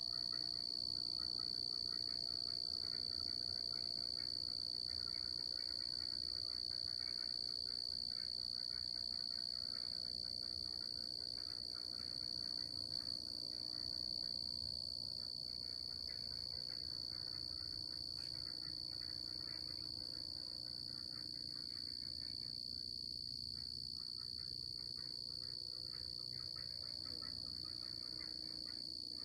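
Night chorus of crickets trilling in one steady, high, unbroken band, with fainter rapid chirping beneath it.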